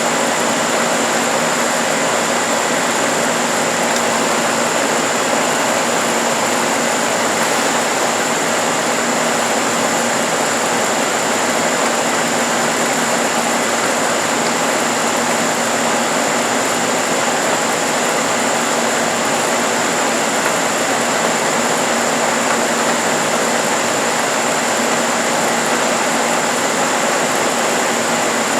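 Parkside PTSB 140 B3 bench-top disc sander running steadily, its small electric motor giving a constant high whine over an even rushing noise.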